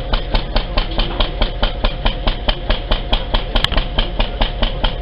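A machine running with a steady, rapid knocking rhythm, about five knocks a second, over a steady hum.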